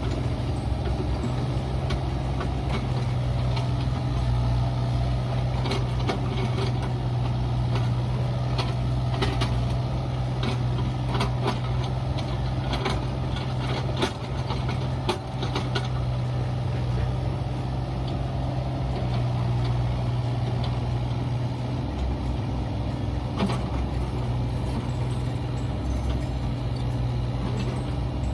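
Mini excavator engine running steadily under work, with a cluster of sharp clinks and knocks midway through.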